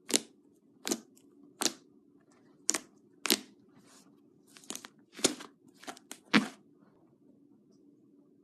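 Slime being squeezed and pressed by hand, giving a run of about ten sharp crackling pops, roughly one every half to one second, that stop about two seconds before the end.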